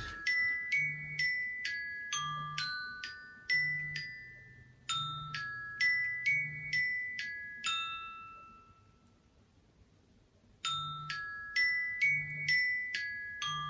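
Background music: a light plinking tune of quick struck, ringing notes over a soft low beat. It stops for about two seconds after roughly eight seconds, then starts again.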